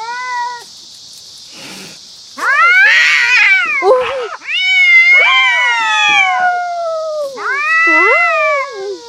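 Domestic cat yowling: a short call at the start, then three long, loud, wavering cries that rise and fall in pitch. This is the drawn-out caterwaul of an agitated, upset cat.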